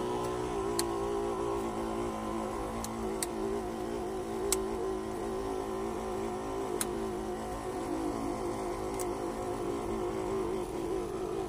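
Electric pump of a backpack crop sprayer running steadily while fungicide is sprayed, a hum with a slightly wavering pitch. A few sharp clicks stand out over it.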